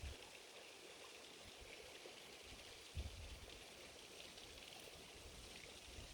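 Near silence: faint outdoor background hiss by the water, with a brief low rumble about three seconds in.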